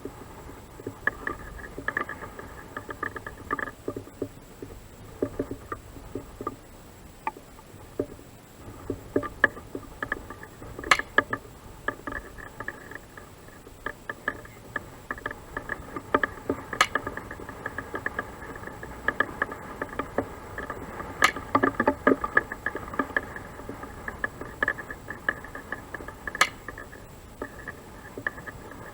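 Four single shots from a Ruger 10/22 .22 LR rifle, a few seconds apart, firing at long range. A dense, irregular crackle of small clicks runs underneath.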